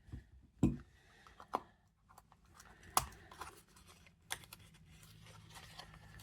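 Small clicks and knocks with light rustling as a blade is put away and packaging is handled, a few separate sharp taps spread through. A faint low hum builds in the second half.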